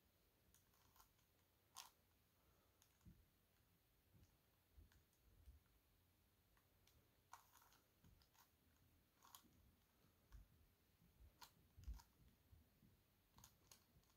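Faint, irregular plastic clicks and soft knocks from a 5x5 dodecahedron twisty puzzle as its layers are turned by hand.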